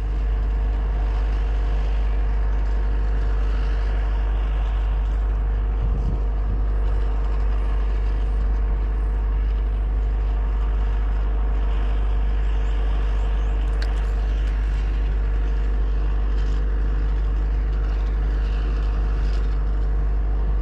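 Steady, unchanging mechanical drone with a heavy low rumble and a faint steady tone above it, like a motor running at constant speed.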